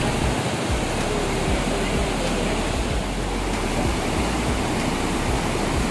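Rohini Waterfalls, water falling and rushing in a steady, unbroken noise.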